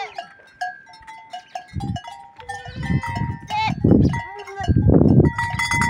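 Goats and kids bleating, with several loud calls in the second half. Short whistled notes of a red-cowled cardinal singing run over them.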